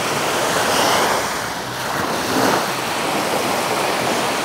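Small waves washing onto a sandy beach, swelling about a second in and again around two and a half seconds in, with some wind on the microphone.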